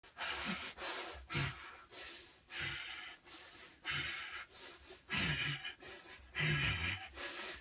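A man panting hard in quick, rhythmic breaths, about one every half second, some with a low voiced grunt, getting louder in the second half. These are an actor's running-effort breaths recorded at a studio microphone for a film scene.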